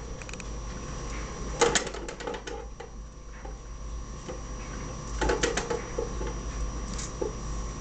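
Pet rats' claws clicking and scrabbling on the wire bars and shelves of their cage, in short clusters of taps about one and a half seconds in and again around five seconds, with a few single taps in between.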